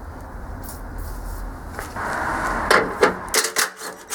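Hand tools working on a snowblower's skid-plate bolts, heard as a rough scraping noise followed by several sharp metallic clicks and knocks as the plates are taken off.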